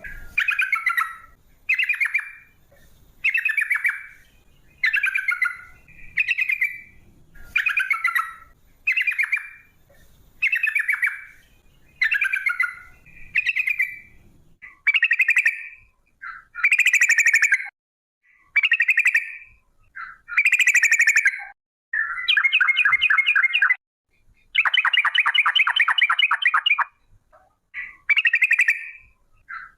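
Yellow-vented bulbul singing: short bubbly phrases about once a second, each a quick run of stuttering notes. In the second half they stretch into longer rapid rolling trills (the 'ropel' song) lasting one to two seconds.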